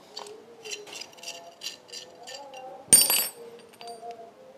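Hand tools and metal parts clinking during motorcycle engine work: a run of light metallic clicks, about three a second, then a single louder metallic clank about three seconds in.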